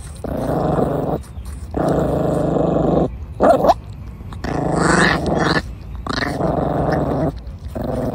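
Puppy growling over an apple it is chewing: about five low growls of roughly a second each with short breaks, and a brief high whine about three and a half seconds in.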